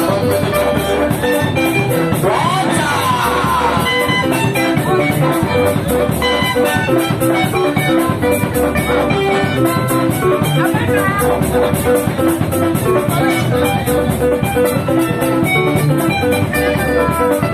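Loud amplified live band music with drums and a steady beat filling the room.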